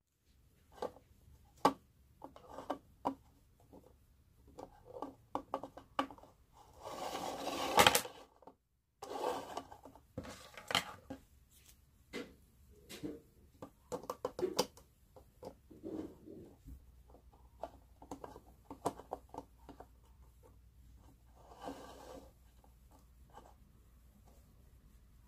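Plastic toy railway bridge parts (a Plarail small iron bridge's red truss, yellow piers and blue rails) being handled and fitted together: irregular clicks, taps and plastic-on-plastic rubbing, with a longer rustling scrape about seven seconds in.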